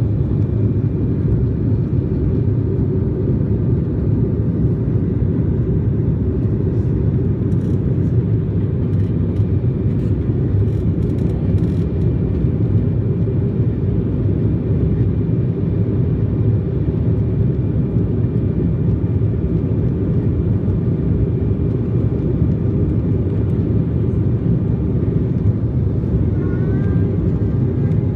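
Airliner cabin noise during the climb after take-off: jet engines and airflow making a steady deep roar, with a faint steady whine above it.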